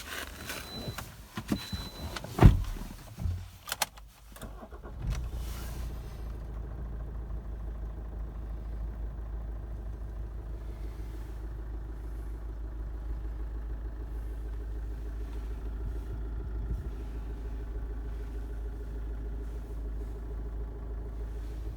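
Toyota RAV4 2.2 D-CAT's four-cylinder diesel engine starting about five seconds in and then idling steadily. Before it come a few knocks and clicks with a loud thump, and a short run of high beeps.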